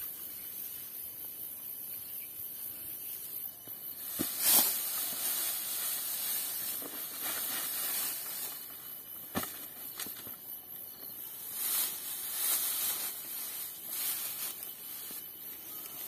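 Dry rustling and swishing of rice stalks being cut and handled by hand, in short irregular bursts, the loudest about four and a half seconds in. A steady high hiss runs underneath.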